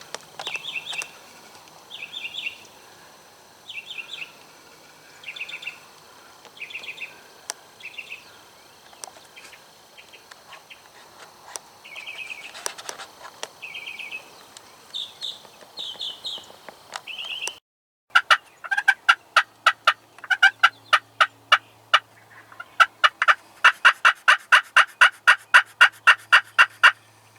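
Wild turkey calling. At first there are spaced pairs of short, high notes, repeated every second or two. About two-thirds of the way in, after a brief break, loud fast rattling runs of notes follow, two long strings of rapid gobble-like pulses.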